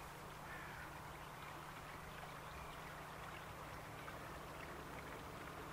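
Faint outdoor background noise with a steady low hum underneath and a few faint short sounds, in a lull with no train passing.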